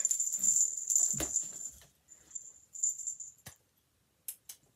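A small jingle bell jingling on and off as it is moved, with a few light knocks.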